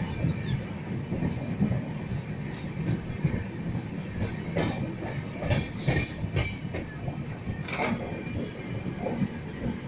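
Passenger express train running on the rails: a steady low rumble with irregular clacks and knocks from the wheels and coaches.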